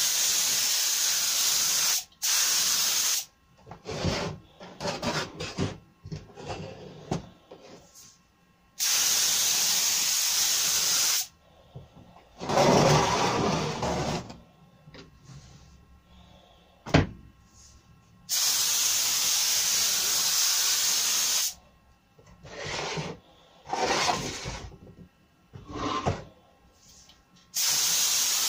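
Compressed-air gravity-fed spray gun hissing in steady bursts of one to three seconds, five times, as the oak shelf boards are sprayed. Between bursts, wooden boards are knocked and slid about on the bench, with one sharp knock about two-thirds of the way through.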